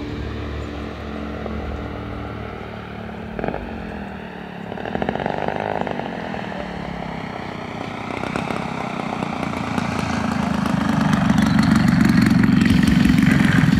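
ZDZ 180cc gas engine of a large radio-control aerobatic plane running at low throttle on the landing approach, growing louder in the last few seconds as the plane touches down and rolls close by.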